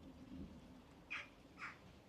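Two short faint animal calls, half a second apart, about a second in, over near silence.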